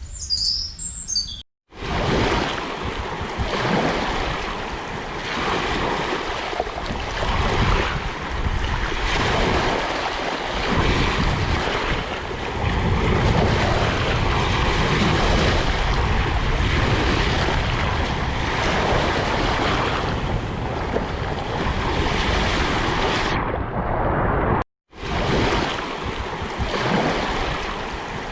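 A few high bird chirps, then after a brief break a loud rushing of water that swells and ebbs unevenly. It drops out for a moment near the end before the rushing resumes.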